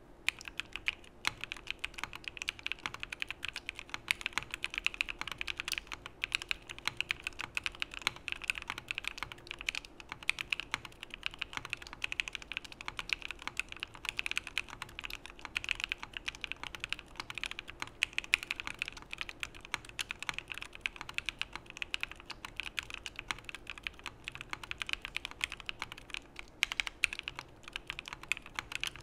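Rapid continuous typing on a Geonworks Frog mechanical keyboard: lubed Epsilon linear switches in an aluminum plate, with CRP keycaps clacking as the keys bottom out in a dense stream of sharp keystrokes.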